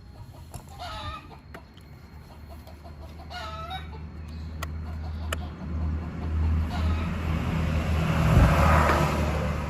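A chicken clucking twice, over a low motor hum and rushing noise that swell steadily to a peak near the end.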